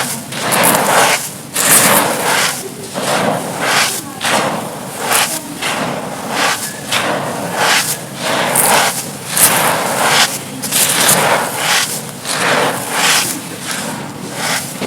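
Dry, brittle crumbling material being crushed and broken apart: a steady run of crisp crunches, one or two a second.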